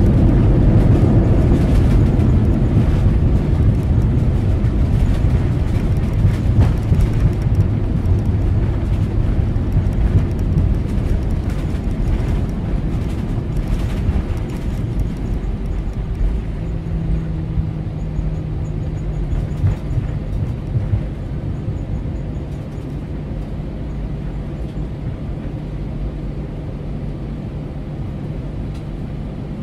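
Cabin noise of an Airbus A320 rolling out on the runway after touchdown: a loud rumble from the CFM56-5B engines and the wheels on the runway, with occasional knocks in the first half. The rumble fades steadily as the aircraft slows, and a steady engine hum comes through from about halfway.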